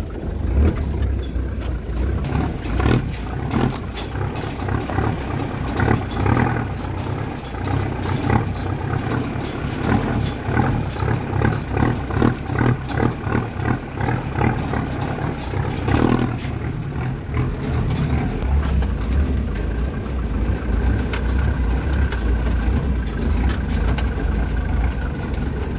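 Daihatsu Taft diesel 4x4 driving over a rough dirt track: the engine drones under load while the body and roof rack knock and rattle over the bumps. A steady whine joins in near the end.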